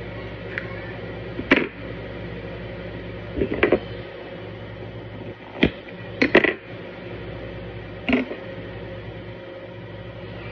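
Small hard objects, a knife and fishing tackle, clicking and knocking against a stone countertop: about half a dozen sharp taps spread out, a few close together, over a steady low hum.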